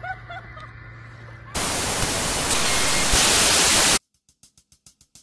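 A few faint chirps over a low hum, then a loud burst of TV-style static hiss lasting about two and a half seconds that cuts off abruptly. Soft rapid ticks follow, about five a second.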